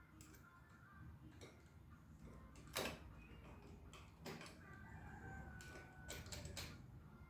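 Faint clicks and knocks of small parts and tools being handled, the sharpest about three seconds in, over near silence, with a faint drawn-out bird call in the background just after the middle.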